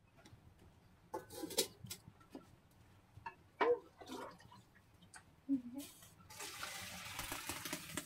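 A metal cooking pot clatters and knocks as it is carried and set on a wood-fired stove. About six seconds in, a steady pour of water starts into the pot.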